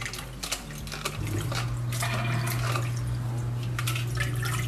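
Water splashing and dripping as strawberries are swished by hand in a salad spinner basket sitting in a bowl of water, then the basket is lifted out to drain. A steady low hum starts about a second in and runs underneath.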